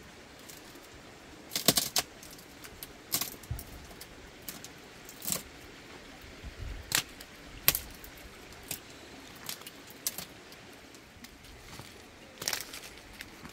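Stones clacking and knocking against one another as flat rocks are handled and stacked: about ten sharp, irregular clinks with a couple of duller thuds among them.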